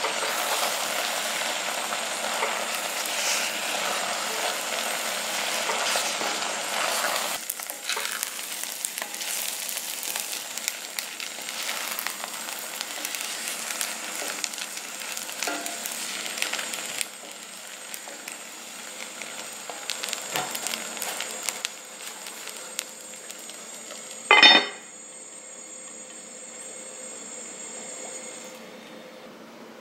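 Rice and water boiling uncovered in a Staub cast-iron cocotte, a busy bubbling crackle, while a wooden spatula gently stirs the rice so it doesn't stick to the bottom. The bubbling grows quieter after about seven seconds. About 24 seconds in comes one sharp, ringing clank as the heavy cast-iron lid is set on the pot.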